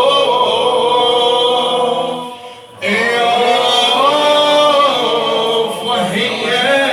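A male reciter chanting a mournful Shia lament unaccompanied, drawing out long wavering melismatic notes, with a short breath break about two and a half seconds in.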